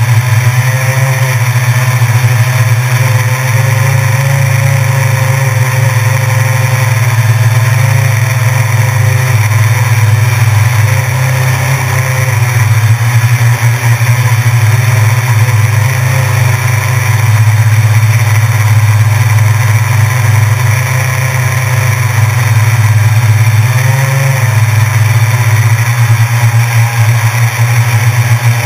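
Electric motors and propellers of a small camera-carrying drone running continuously in flight, a loud steady buzz whose pitch wavers up and down as the throttle changes.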